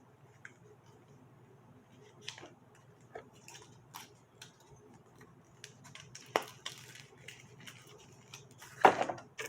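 Packaging being handled while camcorder accessories are unpacked: scattered rustles and light clicks of plastic and cardboard, with a few sharper knocks, the loudest near the end, over a faint steady hum.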